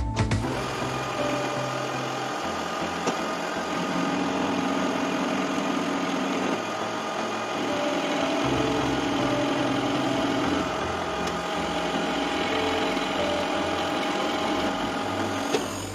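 Metal lathe running, its three-jaw chuck spinning a square metal bar in a centring jig while an insert turning tool cuts a round end on the bar: a steady machine hum with cutting noise.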